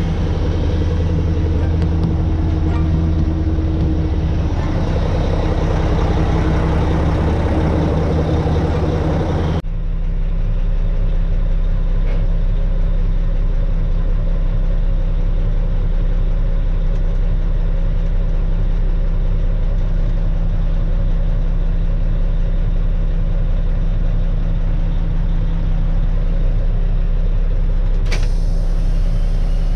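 Mack CH612's diesel engine idling steadily, first from beside the truck, then after a sudden change about ten seconds in from inside the cab, where it is a lower, steadier hum. Near the end, a short hiss of air as an air-brake valve knob on the dash is worked.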